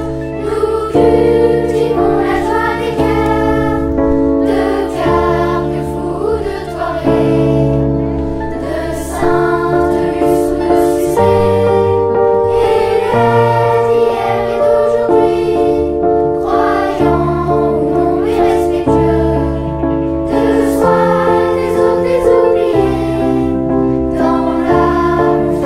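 A choir singing the school hymn over backing music, in sustained notes that change about once a second.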